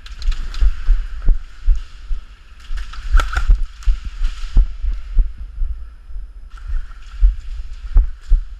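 Irregular low thumps, two or three a second, with bursts of rustling hiss and a few sharp clicks.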